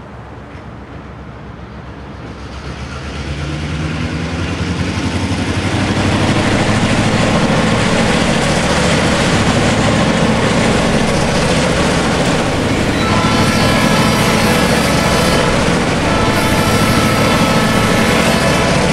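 Four EMD GP9 diesel locomotives, with 16-cylinder two-stroke engines, running as they approach with a train. The engine sound grows louder over the first six seconds and then holds steady as they pass. About two-thirds of the way through, steady high tones join in.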